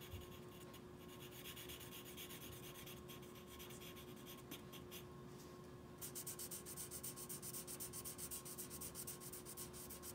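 Black felt-tip marker rubbing on paper as it colours in a shape: faint scratchy strokes at first, turning into quick, even back-and-forth scribbling, several strokes a second, about six seconds in.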